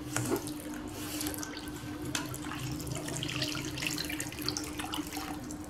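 Warm milk pouring in a steady stream from a glass bottle into a stainless steel bowl of semolina mixture, splashing as it lands.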